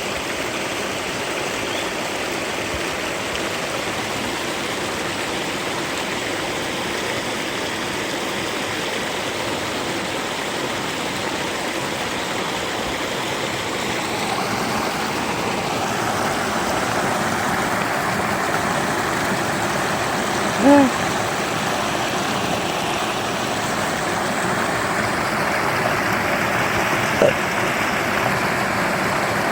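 River water flowing and rushing steadily, growing somewhat louder about halfway through. Two brief pitched sounds stand out, one about two-thirds of the way in and one near the end.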